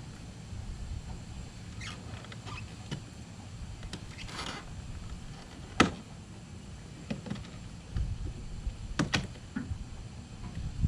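Work on a 2001 Ford F-150's interior door panel with plastic trim removal tools: scraping and rubbing of plastic, with a few sharp clicks as it is pried, the loudest about six seconds in and a close pair about nine seconds in.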